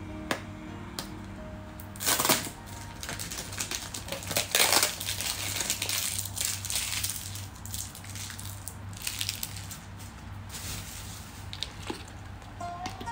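Crinkling and crackling of a thin plastic water bottle being handled close to the microphone, loudest in two bursts about two and four and a half seconds in, over quiet background music.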